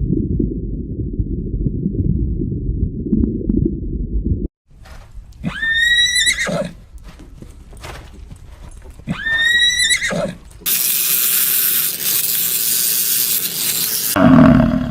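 Horse whinnying twice, about four seconds apart, each call high and then dropping to a lower ending. Before the calls there is a low rumbling noise, and after them a steady hiss.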